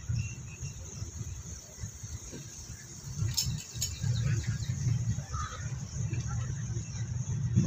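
Passenger train running through a station without stopping, heard from an open coach doorway: a steady low rumble of the moving coach with wind buffeting the microphone, over a steady high hiss.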